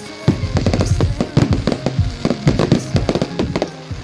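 Fireworks display: a rapid, continuous barrage of bangs and crackles from bursting aerial shells, several reports a second.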